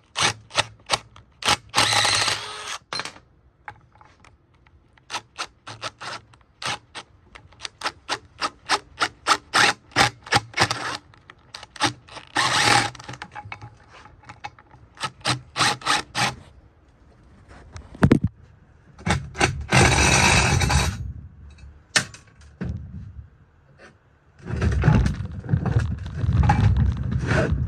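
Socket ratchet on a long extension working bolts out of a large electric motor's metal housing: quick runs of ratchet clicks in spurts, with a few longer noisy bursts. From about four seconds before the end, low rumbling and knocking.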